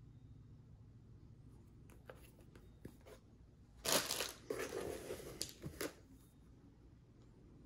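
Plastic packing material crinkling and rustling as a book is lifted out of a cardboard shipping box. A few scattered crackles come first, then a louder burst of crinkling for about two seconds.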